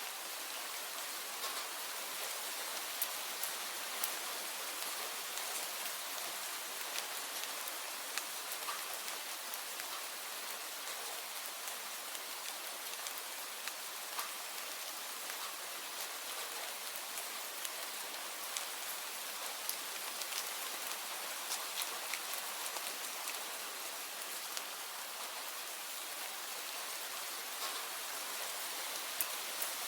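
Steady rain falling, an even hiss with scattered sharper drops pattering on a surface.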